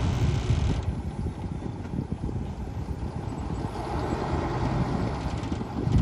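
Diesel dump truck engine running, with wind rumbling on the microphone.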